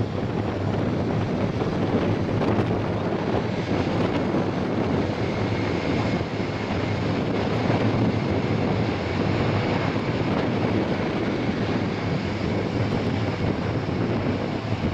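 Airbus A400M's four Europrop TP400 turboprop engines and eight-bladed propellers running as the aircraft taxis: a steady, loud propeller drone, with a faint high whine joining about six seconds in.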